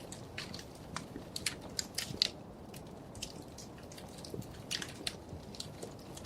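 Wood fire crackling in a fireplace: irregular sharp pops and snaps over a soft steady hiss, with a cluster of louder pops around two seconds in.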